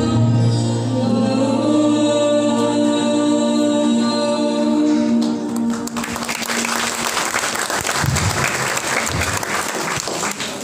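A small mixed group of singers holds the last chord of a hymn, which ends about five seconds in; the congregation then breaks into applause.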